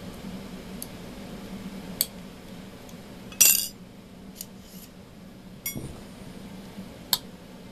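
Light metallic clinks and clicks from a metal rod being slid out of small aluminum brackets and handled: about five short sharp contacts, the loudest a brief rattle about three and a half seconds in.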